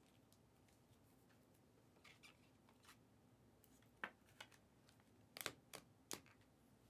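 Quiet handling of trading cards: a few faint taps, then a handful of sharper clicks and snaps in the second half.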